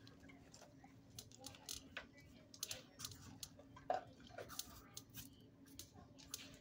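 Faint, irregular light clicks and ticks of a dog's claws on the kennel floor as it moves about and sniffs, over a faint steady hum.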